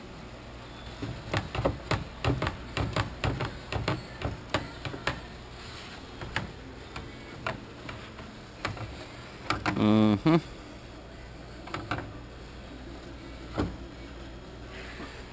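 Cracked fiberglass (SMC) semi-truck fender clicking and creaking as it is flexed and pushed by hand: a quick irregular run of clicks and knocks, then scattered single knocks, with one louder, longer pitched creak about ten seconds in.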